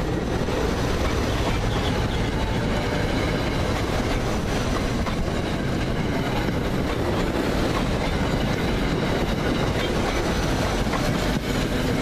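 SEPTA Silverliner electric commuter train passing close by: a steady rumble of steel wheels on the rails, with scattered clicks as the wheels cross rail joints.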